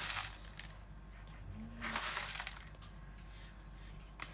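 Instant coffee granules scooped with a metal teaspoon from a foil pouch and tipped into a ceramic bowl: the foil bag crinkles and the granules rustle in two short bursts, at the start and about two seconds in, with small clicks of the spoon.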